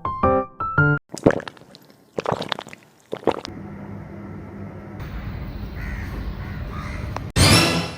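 Crow cawing three times, about a second apart, after a few closing piano notes; a steady hiss follows, and a short loud burst of noise comes near the end.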